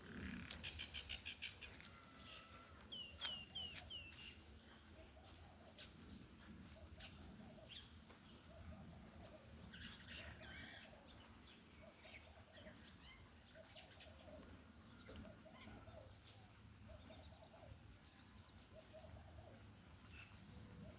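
Birds chirping and calling, faint. There is a fast trill near the start and a short run of falling whistled notes about three seconds in, then scattered chirps, with fainter low notes repeating about once a second.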